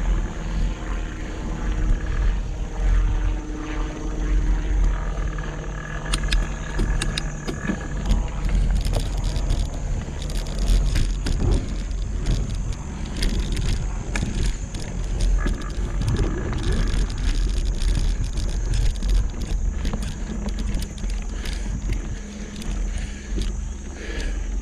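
Mountain bike riding on a dirt trail, heard through an action camera: wind buffeting the microphone as a steady rumble, with frequent rattles and clicks from the bike over rough ground.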